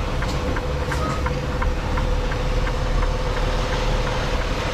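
Semi-truck diesel engine running at low speed while the tractor-trailer backs into a dock, heard as a steady low rumble and hum with light, regular ticking about three times a second.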